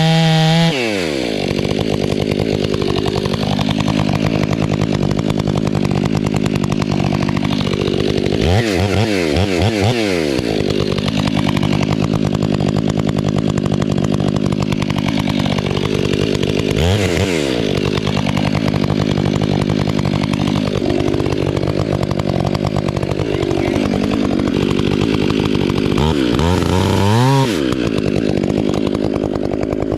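Two-stroke chainsaw cutting at full throttle through a felling cut in a dead fir tree, its engine note dropping as the bar loads into the wood. The throttle is briefly eased off and revved back up three times: about a third of the way in, past halfway, and near the end.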